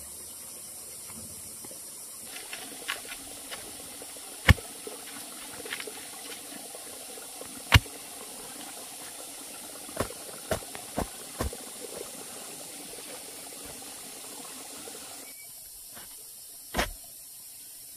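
A steady hiss with sharp knocks scattered through it, the loudest about four and a half and eight seconds in, then a quick cluster of four a couple of seconds later and one more near the end.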